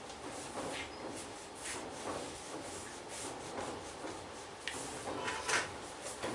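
Hands rubbing over skin in a massage: short brushing strokes repeating roughly twice a second, with one stronger stroke about five and a half seconds in.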